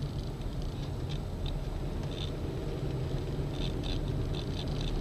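Steady low hum of a vehicle running, with short high-pitched chirps now and then, several in quick succession near the end.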